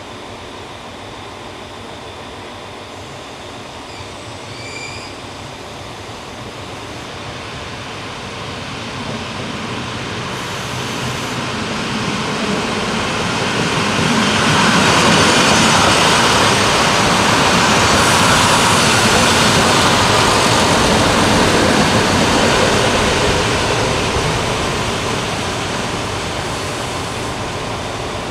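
FS ALn 668 diesel railcar approaching and running past on the rails, growing louder to a peak about halfway through, then dying down as it draws to a stop.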